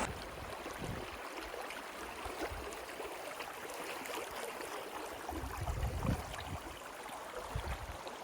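Small creek flowing, a steady rushing of water, with a few short low thuds about halfway through and again near the end.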